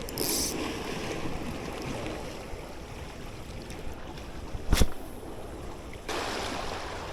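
Sea water washing against shoreline rocks, a steady wash that swells louder near the end. There is a brief high hiss just after the start and one sharp click about five seconds in.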